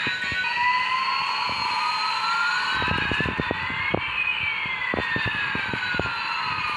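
Bump-and-go toy airplane playing its electronic jet sound effect through a small speaker: a hiss with one tone slowly rising and another slowly falling. Rapid clicks and knocks join in about three seconds in.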